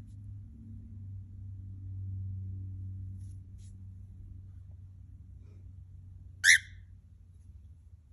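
Cockatiel gives one short, loud chirp near the end, after two faint chirps about three seconds in, over a steady low hum.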